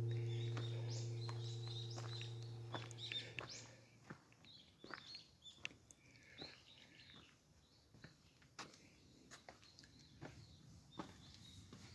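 A deep ringing tone with overtones, like a struck bell, dies away over the first four seconds. Birds chirp through it and after, with scattered light clicks.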